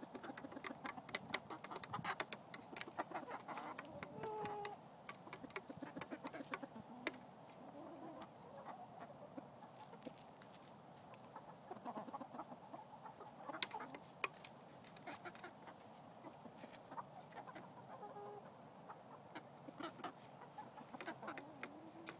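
Chickens clucking quietly, with a few short calls, over a run of sharp ticks from beaks pecking feed off a mirror lying flat on the ground.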